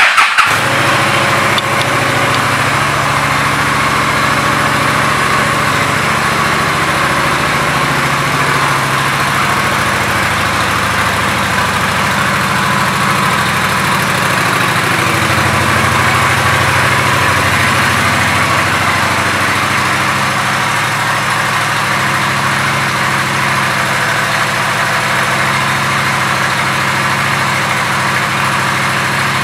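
Honda Shadow Phantom 750's V-twin engine firing up with a brief burst, then running at a steady idle.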